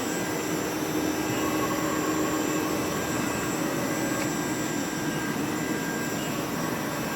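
Spindle of a TRAK DPM-5 CNC vertical mill running at about 5,000 RPM, a steady mechanical whine, its tone shifting in the first few seconds as it comes up to speed.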